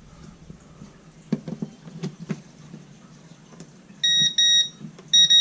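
A few handling knocks, then about four seconds in a non-contact voltage tester starts beeping rapidly in a high-pitched chirp, signalling that the wiring is live.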